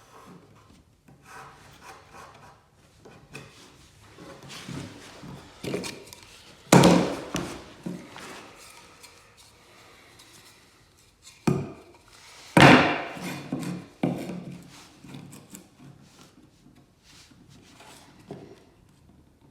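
Pieces of pine board being handled and shifted, with scraping and rubbing and irregular wooden knocks. Two of the knocks are much louder, about a third of the way in and again past halfway, with a sharper knock just before the second.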